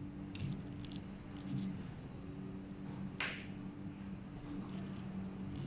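Light metallic clinks of small steel tools and bolts being picked up and set down on a wooden table, a few scattered taps with a short scrape about three seconds in, over a steady low hum.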